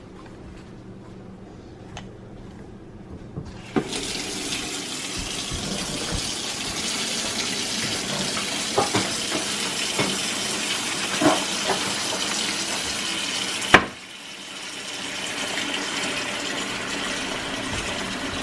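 Water running from a tap to fill an electric foot spa basin. It starts about four seconds in, with a few small knocks along the way, stops abruptly near fourteen seconds, and a softer flow of water starts up again shortly after.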